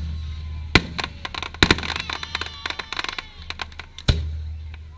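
Fireworks display going off: a string of sharp bangs and booms with dense crackling between them. The loudest bangs come about a second in, near two seconds and just after four seconds.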